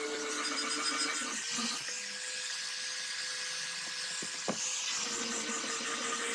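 Small electric power tool motor running steadily at a high, even hum. Its pitch rises slightly a second and a half in and drops back near the end, with one sharp click between.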